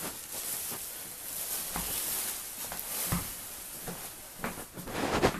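Rustling and shuffling handling noise from someone moving about close to the microphone, with a few soft knocks.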